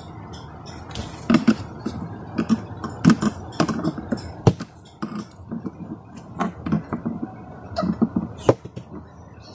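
Pliers tightening the metal nuts on a portable speaker's control panel: irregular small clicks, taps and scrapes of metal on metal and plastic, with a few sharper knocks.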